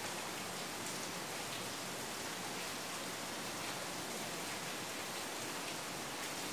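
Steady background hiss, with faint strokes of a marker drawing on a whiteboard.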